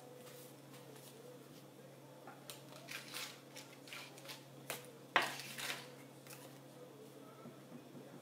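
A few light clicks and rustles of small objects being handled, the sharpest about five seconds in, over a faint steady hum.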